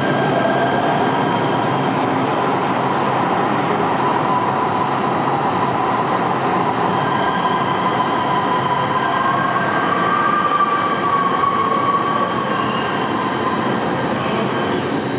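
LA Metro light rail train running: a steady loud rumble with a high tone held through it, wavering and rising slightly about nine seconds in.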